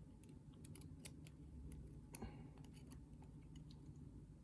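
Faint, scattered light clicks of small lock pins, springs and tools being handled as a pin-tumbler lock's core is taken apart.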